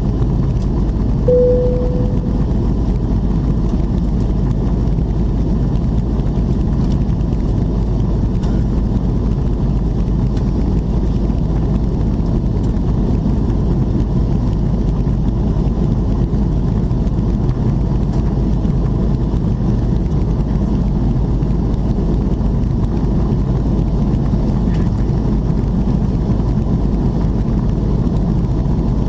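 Steady cabin roar of an Airbus A330-300 in its climb after takeoff, engine and airflow noise heard from a window seat. A brief single tone sounds about a second in.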